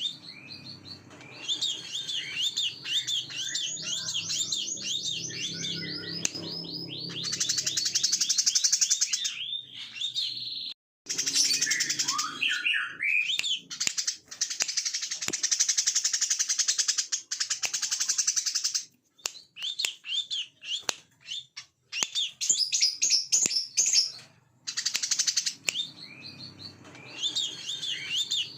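Brown-throated sunbird (kolibri kelapa) singing a fast, continuous chattering song: long runs of high repeated chirps and buzzy trills, broken by a few sudden cuts and short gaps.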